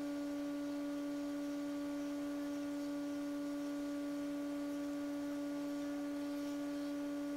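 A steady hum holding one unchanging note, with fainter overtones above it.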